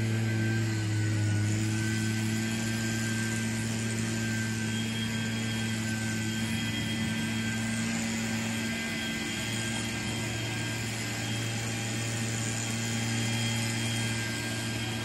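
Leaf blower motor running steadily: an unbroken low droning hum with an airy hiss over it.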